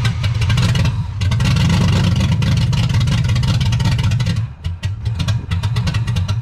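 LS-swapped Chevy Nova's V8 engine running loudly and revving, with a brief drop-out about four and a half seconds in before it picks up again. The car is nearly out of gas.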